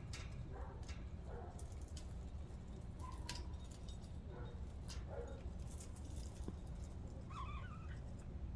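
Budgerigars chirping in short, scattered calls mixed with sharp clicks, with one louder chattering call near the end, over a steady low hum.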